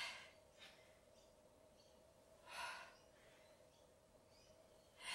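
A woman's faint breaths in and out while lifting dumbbells in stiff-legged deadlifts, a breath about every two and a half seconds. A steady faint hum runs underneath.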